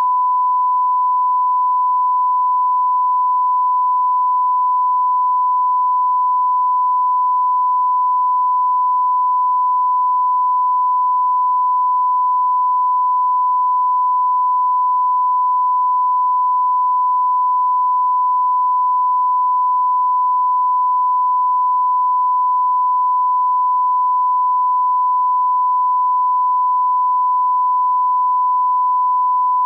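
Steady 1 kHz sine test tone, the reference line-up tone that runs with colour bars for setting audio levels.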